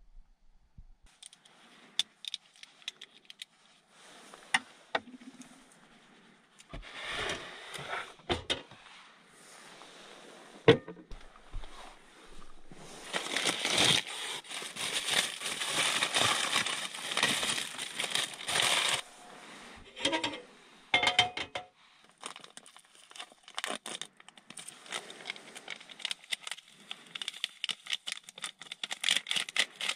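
Paper pastry bag crinkling and rustling as it is opened and handled, loudest for about six seconds in the middle. Scattered clicks, knocks and clinks of cutlery and dishes being handled come before and after it.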